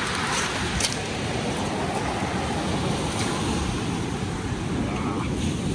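Ocean surf washing up and drawing back over a wet pebble beach, a steady rushing hiss, with wind buffeting the microphone.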